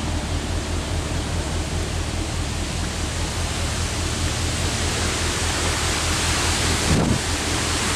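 Wind rushing over the microphone, a loud, even noise over a steady low drone, growing stronger in the second half with a gust about seven seconds in.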